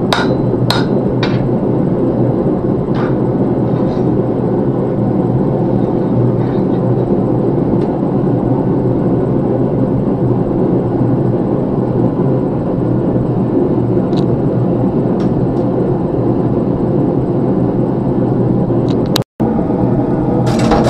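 Hand hammer striking a hot Damascus blank on an anvil: a few sharp, ringing blows in the first second and a half and one more about three seconds in, over the steady roar of the forge blower. The sound breaks off for an instant near the end.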